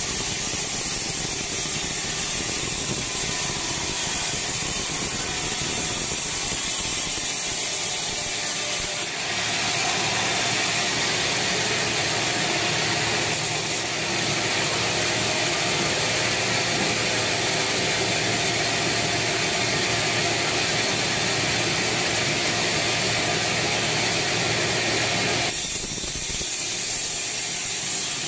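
Band sawmill cutting through a weathered teak log: the motor and steel band blade run steadily under load. The sound grows brighter and fuller about nine seconds in and drops back a little near the end.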